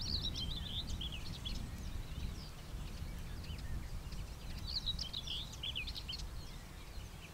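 Small songbirds singing in quick high twittering phrases, busiest at the start and again around the middle, over a steady low rumble.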